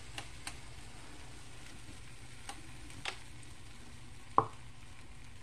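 Waffle batter sizzling faintly on the hot plates of a waffle iron, with a few light clicks and one sharper knock about four and a half seconds in.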